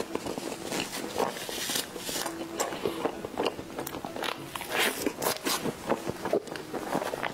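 Close-miked chewing and lip smacking on soft durian mille-crêpe cake, a steady run of small, sharp mouth clicks.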